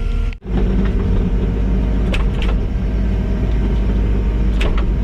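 Kubota skid steer's diesel engine running steadily under work. About half a second in the sound drops out for a moment, and a few short sharp clicks or knocks sound over it.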